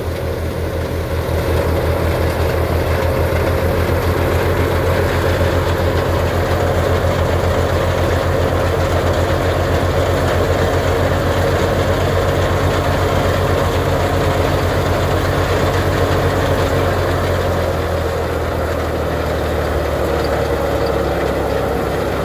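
Tractor diesel engine running steadily under load to power a wheat thresher, mixed with the whir of the thresher's spinning drum and fan. The drone eases slightly near the end.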